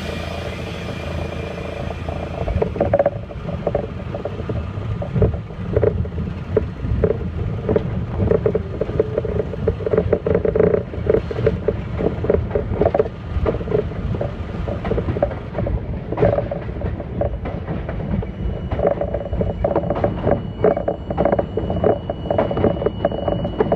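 R32 subway car rolling along elevated track, heard from inside the front car: a steady rumble of wheels and running gear with frequent clicks and knocks as the wheels cross rail joints. It gets under way early on, and a thin high whine comes in near the end.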